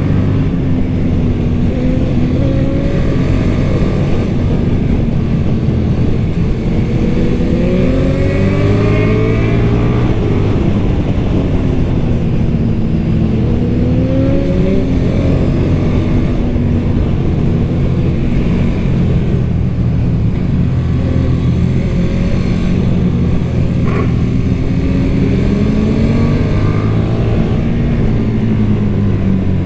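KTM 1290 Super Duke R's 1301 cc V-twin on its stock exhaust, riding. The engine note climbs under acceleration and drops back several times as the throttle opens and closes. There is one short click a little past two-thirds of the way through.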